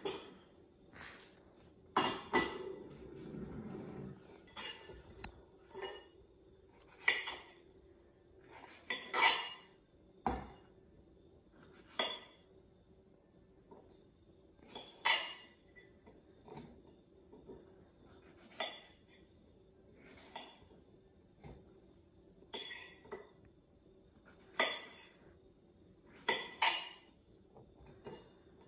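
Kitchen knife slicing strawberries on a ceramic plate: the blade strikes the plate in sharp clicks at uneven gaps of a second or more, some in quick pairs. There is a brief rustle about two seconds in.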